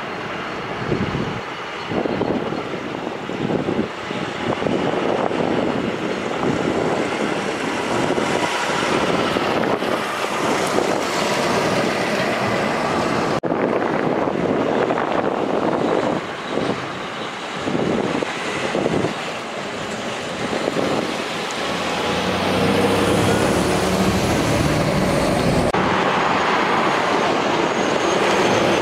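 Road traffic: semi trucks and cars passing, with tyre and engine noise. Near the end a big-rig diesel engine runs close by, and the sound changes abruptly twice where shots are cut together.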